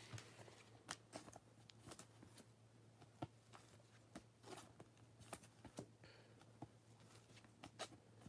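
Faint, scattered light clicks and taps of glossy basketball trading cards being handled and laid down on a stack by gloved hands, over a low steady hum.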